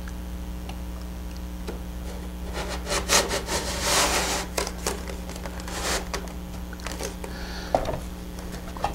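A plywood wing spar scrapes through the channels of a model airplane's two wing halves as they are slid together: several short rubbing, scraping strokes in the middle, then a light knock near the end.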